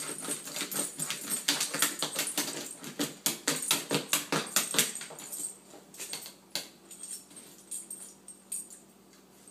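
Dog's claws scratching and clicking rapidly on the kitchen floor as it paws to bury a bone. About halfway through the scratching thins out to scattered taps.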